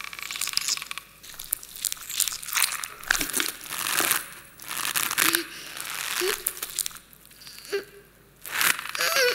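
Soundtrack of an animated advertising film played back in a hall: irregular bursts of rustling, crinkly noise with short squeaky pitched sounds between them.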